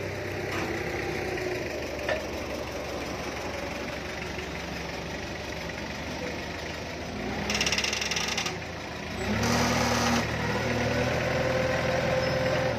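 A vehicle engine idling steadily, with two short, louder rushes of hissing noise about seven and a half and nine and a half seconds in, after which the engine note is louder and steadier.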